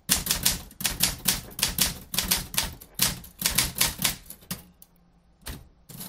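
Typewriter keys being struck in a steady run of typing, sharp clacks at about four a second, with a brief pause about five seconds in.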